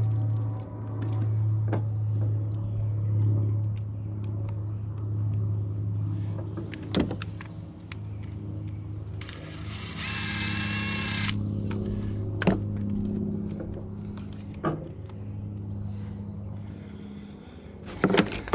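Engine idling steadily with a low hum, over a few sharp clicks and knocks from handling parts and one short rasping noise about ten seconds in.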